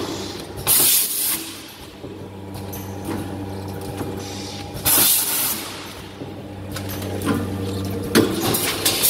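Microwave-popcorn packing machine running with a steady motor hum. About every four seconds there is a short, loud hiss of compressed air venting from its pneumatic cylinders as it cycles.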